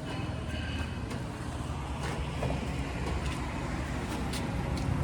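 Heavy diesel engine running steadily at idle, with a few faint light clicks over it.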